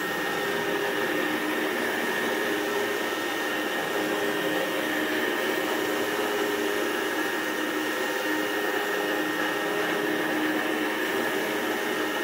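Rainbow canister vacuum running with its AquaMate carpet shampooer attachment, pushed back and forth over carpet on the wash cycle while it works soapy water into the pile. It makes a steady motor whine with a high tone.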